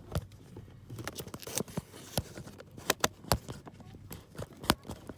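Scattered, irregular clicks and knocks of handling noise as hands and the recording phone move around under a truck's dashboard.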